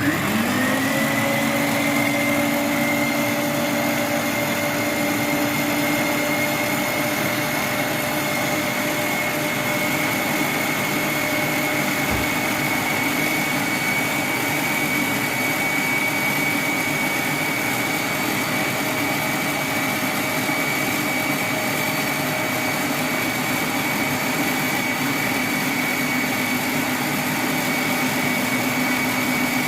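Electric mixer spinning up and then running at a steady speed, beating eggs, sugar, orange juice and oil into a frothy cake batter before the flour goes in. It switches off at the very end.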